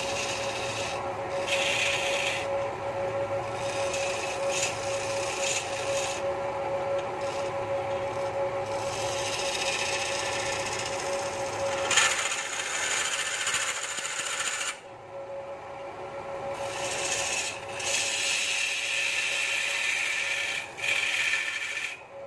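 Wood lathe running with a steady hum while a hand-held tool rubs and scrapes against the spinning wooden stool blank. The scraping swells and eases as the tool is worked, loudest about halfway through and falling away briefly a few seconds later.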